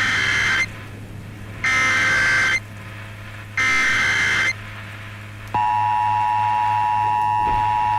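Emergency Alert System tones: three bursts of SAME header data, each about a second long and about two seconds apart, then a little over five seconds in the steady two-tone EAS attention signal starts and holds. A low hum runs underneath.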